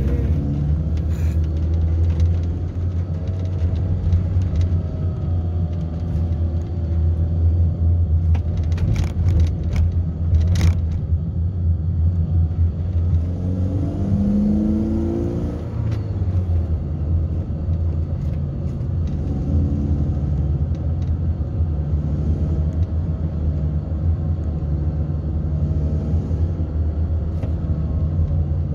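Car engine and road noise heard from inside the cabin while driving slowly in traffic: a steady low rumble, with a few sharp clicks about ten seconds in.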